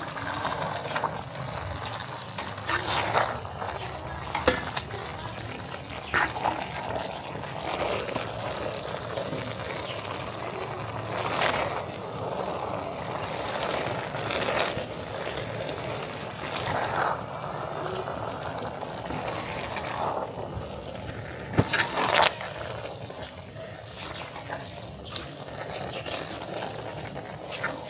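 Food cooking in a pot: a steady sizzling noise, with occasional knocks and clinks of a utensil against the pot.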